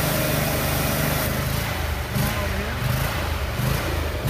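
An 18-horsepower Honda engine running steadily, driving a high-pressure pump, with the hiss of water jetting from the hose nozzle on its stream setting. The hiss swells and drops a few times.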